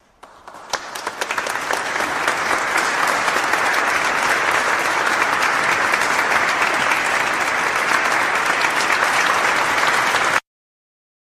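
Applause, a dense patter of clapping that swells over the first couple of seconds, holds steady, and cuts off suddenly near the end, laid in as an edited sound effect.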